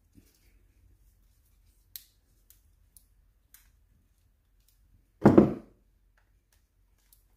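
Handling of a new spool of flux-core welding wire at the welder: a few light clicks, then one loud, short thud a little past five seconds in.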